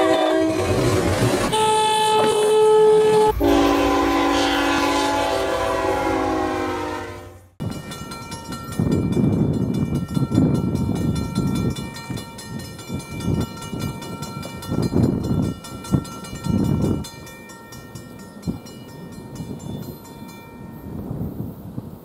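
NJ Transit diesel locomotive's multi-chime air horn blowing, its chord changing about three seconds in and cutting off sharply after about seven and a half seconds. Then gusty wind buffeting the microphone, with a faint steady high tone under it, easing off near the end.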